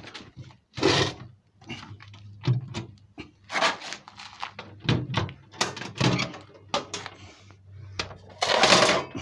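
Metal lathe parts and tools being handled in a box: a run of knocks and clatters, with a longer rattle near the end.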